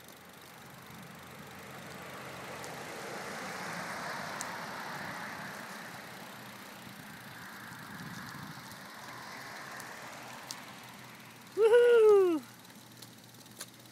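A soft rushing noise of movement along the path swells and fades. About twelve seconds in comes one loud, hooting 'woo'-like call from a voice, rising and then falling in pitch.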